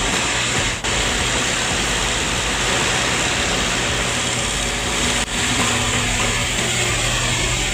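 Diesel engine of heavy construction machinery running steadily under load, with a broad mechanical roar and two brief dropouts, about a second in and about five seconds in.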